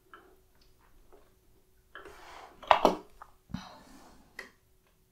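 Keys being pressed on a Commodore CBM-II keyboard: a few scattered clicks, the loudest pair about three seconds in, followed by a low thump. A faint steady hum runs underneath.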